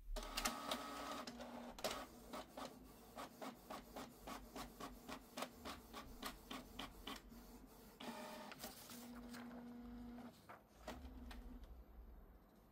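Canon PIXMA TR4750i inkjet printer printing a test page: a run of regular mechanical ticks about four a second over a motor whine, then a steadier motor whir for a couple of seconds near the end.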